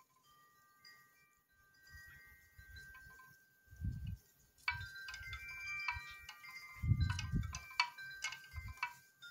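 Wind chimes ringing in gusty wind, several fixed tones struck together and ringing on, quiet at first and busiest from about five seconds in. Wind buffets the microphone now and then.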